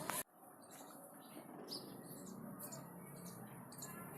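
A parrot making a series of short, faint, high chirps and squeaks, after a sharp click just after the start.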